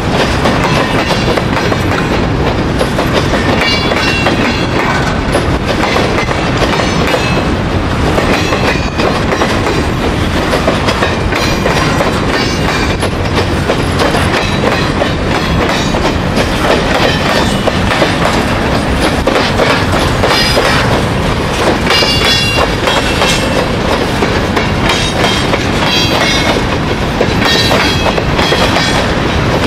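Freight wagons of a long train rolling past close by: a steady rumble of steel wheels on rail with clickety-clack over the rail joints. Short high wheel squeals come through now and then.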